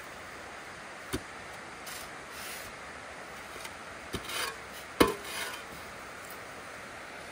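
Steel shovels scraping into damp sand and throwing it into a steel tractor trolley: a few separate scrapes and knocks, the loudest about five seconds in, over a steady background hiss.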